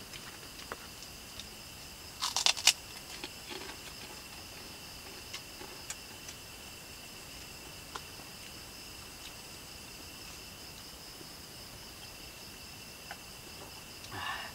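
Steady chirring of night insects, holding two high pitches. About two seconds in comes a short burst of crinkling as a paper-and-plastic food wrapper is handled, with a few small clicks of eating after it and a brief rustle near the end.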